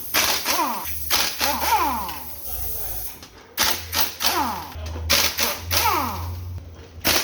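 Power tool, likely an air impact wrench, used in short repeated bursts on bolts as the engine is stripped down, each burst dying away in pitch as the tool spins down.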